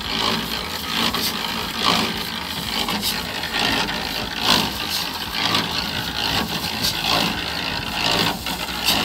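Electric concrete mixer running steadily, with a shovel scraping into a sand pile and shovelfuls of sand thrown into the turning drum every second or two.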